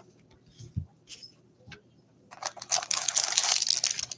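A few soft knocks, then about two seconds of loud crinkling of the clear plastic wrap around a stack of baseball cards as the stack is pulled from its tin.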